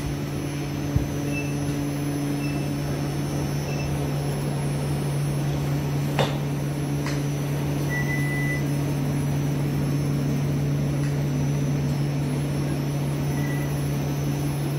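Steady low electrical and ventilation hum of catheterization-lab equipment, broken by a few short, high electronic beeps and a couple of faint clicks.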